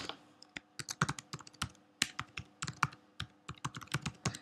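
Typing on a computer keyboard: an irregular run of quick key clicks, the loudest right at the start.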